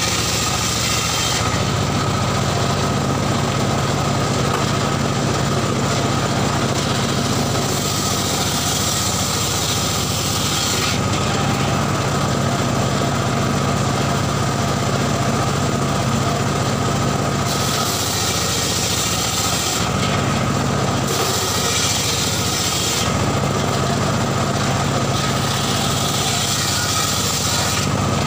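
A homemade engine-driven circular saw bench running steadily while mahogany planks are ripped on it. The engine drone carries on throughout, and the sound of the blade in the wood changes every few seconds as each pass goes through.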